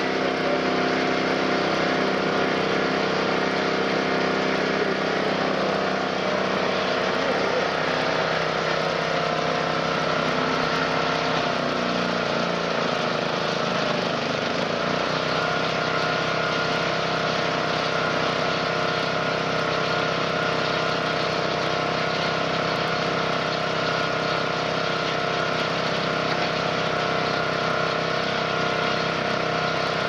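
Engine of a mobile pine straw baler running steadily; about halfway through its pitch sags for a few seconds, then settles back.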